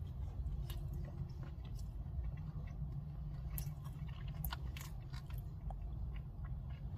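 A man chewing a mouthful of rotisserie chicken close to the microphone, with scattered small crunches and clicks: he has bitten into a hard, really crunchy piece, which he takes for something like cartilage. A steady low hum runs underneath.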